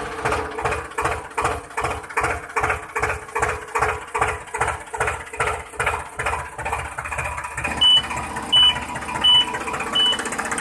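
Slow single-cylinder walking-tractor (power tiller) engine chugging evenly at about three beats a second. From about eight seconds in, a short high beep repeats a little faster than once a second.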